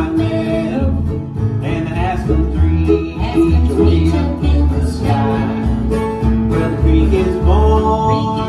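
Acoustic string band playing a country/bluegrass tune live: mandolin, acoustic guitars and a plucked upright bass, the bass sounding steady low notes under the strummed and picked strings.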